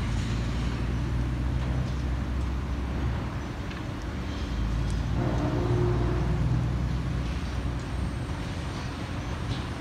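Crane engine working a wrecking ball, a steady low rumble that picks up about halfway through.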